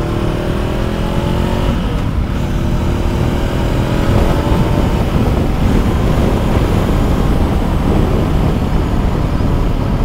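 Voge 525 ACX's parallel-twin engine accelerating under load, its pitch rising, breaking off about two seconds in for an upshift and rising again until about five seconds in. After that a steady rush of wind noise at speed covers the engine.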